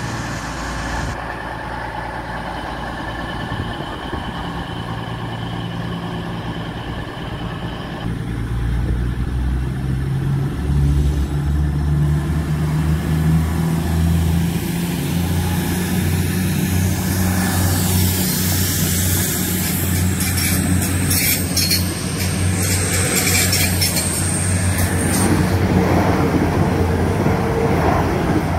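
Class 222 Meridian diesel multiple unit passing slowly, its underfloor diesel engines droning steadily with wheel-on-rail noise. The drone grows louder about eight seconds in and stays strong as the coaches roll by.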